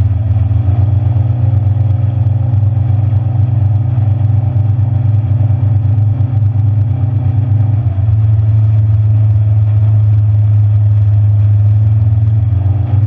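Boat's outboard motor running steadily at cruising speed under a heavy low rumble of rushing air and hull noise. The engine note shifts slightly about eight seconds in.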